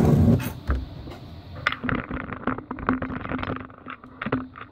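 Portafilter being locked into the group head of a DeLonghi EC850M espresso machine to test a newly fitted group gasket: a muffled handling thump at the start, then a run of short metal scrapes and clicks as it is twisted tight against the gasket.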